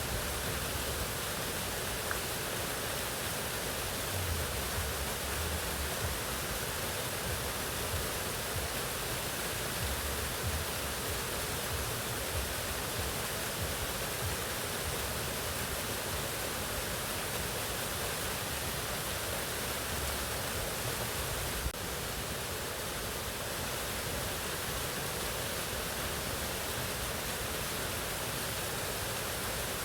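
Waterfall rushing steadily, an even roar of falling water. About two-thirds of the way through there is one brief click, and the level drops slightly after it.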